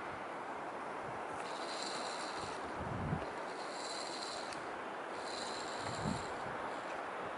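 Wind rushing over the microphone in a steady noise, with two short low buffets. A high-pitched sound repeats three times, each well under a second long.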